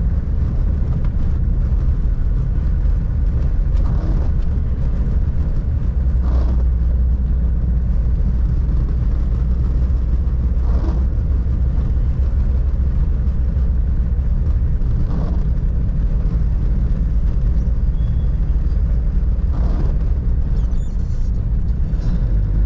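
Cabin noise of a moving 1997 Toyota Hilux pickup: steady low road rumble mixed with its 3.0-litre 5L four-cylinder diesel running. A faint brief sound recurs about every four seconds.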